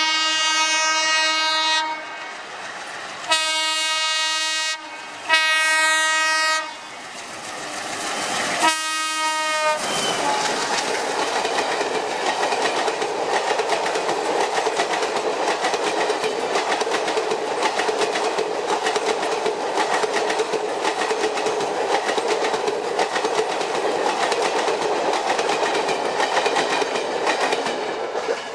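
Indian Railways train horn sounding four times: two long blasts, a third, then a short fourth. Then a train runs past with continuous wheel clatter over the rail joints.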